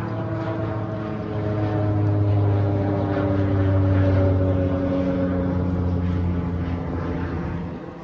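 A propeller plane flying over: a loud, steady engine drone whose pitch slides slowly downward as it passes, swelling about a second and a half in and dropping away near the end.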